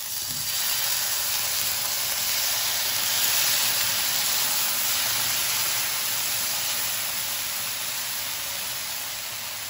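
Thin rice-flour dosa batter sizzling on a hot oiled tawa over a high flame: a loud, steady hiss that eases slightly toward the end.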